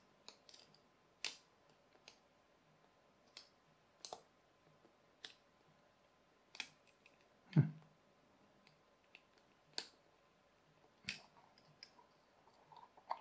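Small plastic parts of a solar toy kit and a craft knife clicking and tapping against each other as the parts are worked into place by hand. About a dozen scattered sharp clicks, with one louder knock a little past halfway.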